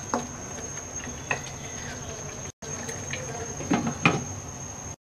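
Milky egg curry simmering in a non-stick wok with a faint steady crackle and a few small pops. A glass lid clinks down onto the pan twice near the end.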